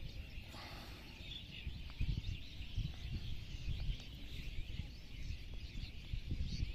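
Outdoor ambience of many small birds chirping continuously, over a low, uneven rumble.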